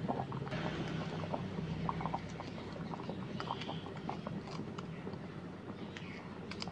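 White sugar poured and scraped with a wooden spoon from a ceramic bowl into a pot of boiling water and pumpkin, making many small clicks and scrapes over a steady low hum.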